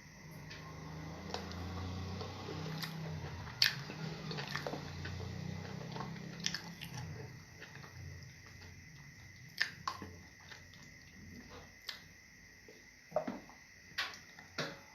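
Close-up eating sounds of fufu and stew: wet chewing with scattered sharp mouth clicks and smacks.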